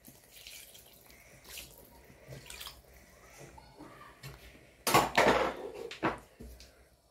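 Water poured from a jug into a pot of thick soup. It is faint at first, then about five seconds in there is a louder rush of pouring and splashing that lasts about a second.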